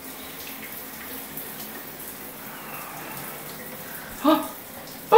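Shower spray from a wall-mounted showerhead falling in a tiled shower stall: a steady hiss of running water. A short vocal sound from a small child cuts in a little over four seconds in.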